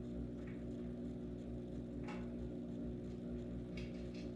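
Steady low mechanical hum, with a few light clicks and taps about halfway through and near the end.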